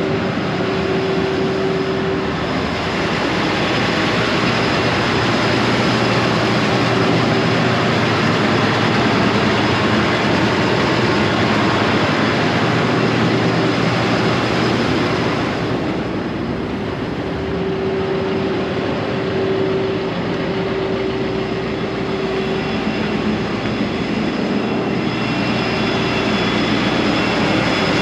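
A tractor engine running steadily while a tractor-driven fan blows a loud, steady rush of air, with an engine drone underneath; the air rush eases briefly about halfway through, then picks up again.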